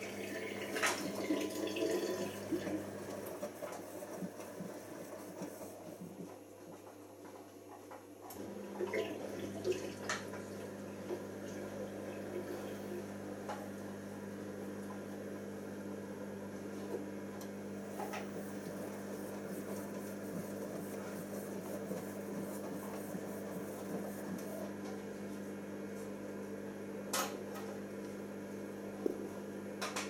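Siemens IQ1430 front-loading washing machine washing a full load: the drum tumbles the laundry with water sloshing over a steady motor hum. It goes quieter for a couple of seconds, then the drum starts turning again about eight seconds in. There are occasional sharp clicks of something hard knocking in the drum.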